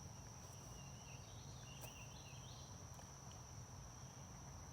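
Faint rural outdoor ambience: a steady, high insect trill typical of crickets, with a low rumble underneath and a few faint chirps.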